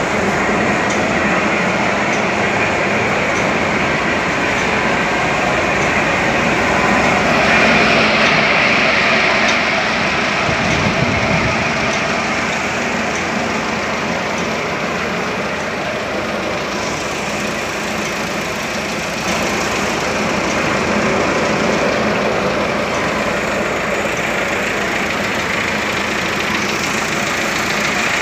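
A tractor engine running steadily, with dense, even machine noise and no break.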